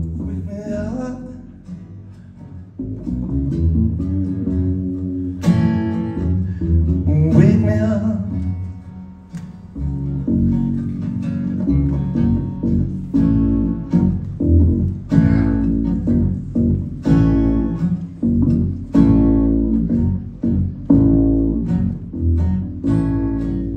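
Acoustic guitar strummed in a steady rhythm, with an upright double bass playing low notes underneath, in an instrumental passage of a live song.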